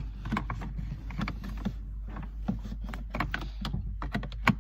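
Plastic cabin air filter cover being slid back into its housing in a 2017 Mazda 2, with irregular scraping and clicking of plastic on plastic and a sharper click near the end.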